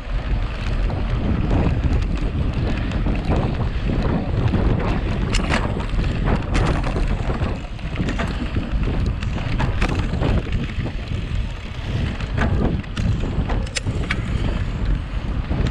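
Wind rushing over the microphone of a camera on a mountain bike being raced, with tyre noise and frequent short clattering knocks as the bike goes over rough gravel.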